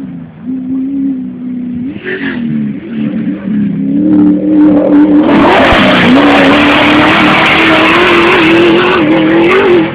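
Off-road truck engine running and revving, its pitch rising and dipping as it drives. From about five seconds in, a loud rushing noise joins it.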